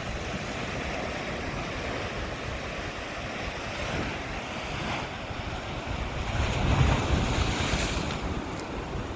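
Sea waves washing on the shore with wind buffeting the microphone. One wave surges louder about two-thirds of the way through, then eases off.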